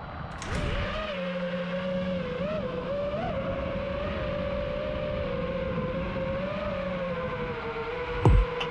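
FPV quadcopter's brushless motors and propellers spinning up and whining steadily, the pitch wavering slightly with throttle. Near the end a few loud, low thumps cut in.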